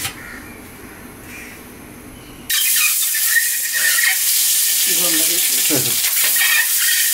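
Spiced boiled eggs dropped into hot oil in a metal wok, the oil sizzling. The sizzle starts suddenly about two and a half seconds in and then carries on as a loud, steady hiss.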